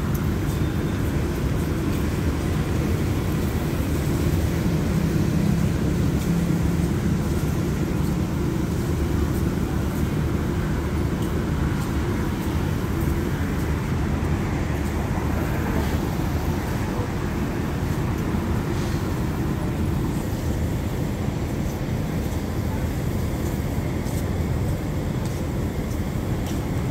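Thai express passenger train standing at the platform, its diesel engines idling with a steady low rumble.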